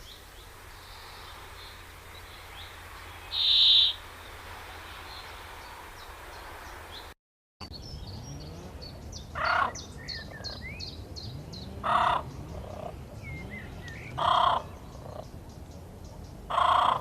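Bird calls from two recordings, edited together. First a single loud, high call over a hissy background; then, after a brief cut, a different bird gives a loud call about every two and a half seconds while small birds chirp and tick in the background.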